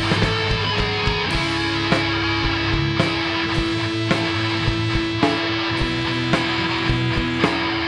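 Heavy rock music: electric guitar over a steady drum beat, with one long held guitar note starting a little over a second in.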